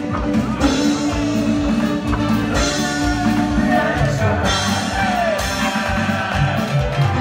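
Amplified band music with a singer over a steady drum beat, played through PA speakers.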